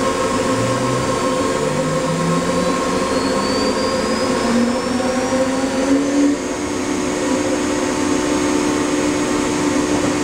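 AKM1325C CNC engraving machine running, a steady machine whine with several held tones. A lower motor tone climbs in steps over the first six seconds, then holds.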